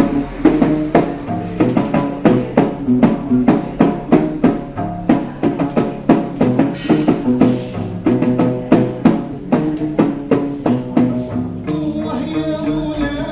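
Gnawa music: a guembri bass lute plucked in a repeating low riff, with a sharp percussive click on each stroke at about three to four strokes a second. Near the end the strokes soften and more sustained tones come in.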